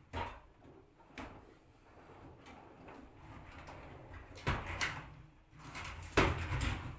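LG F4R3VYW3WE direct-drive front-loading washing machine mid-wash on a cold sportswear programme: the drum turning the wet load, which swishes and sloshes in irregular surges, loudest about four and a half and six seconds in.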